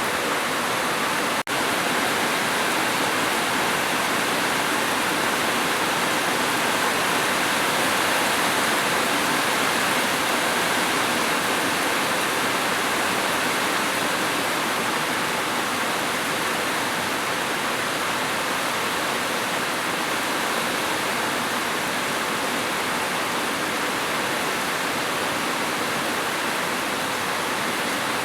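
Steady heavy rain, a dense even hiss of falling water with no separate drops standing out. It cuts out for an instant about a second and a half in, then carries on unchanged.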